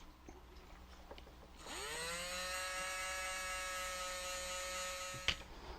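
Small electric motor spinning up to speed with a quick rising whine, running steadily for about three and a half seconds, then cut off with a click.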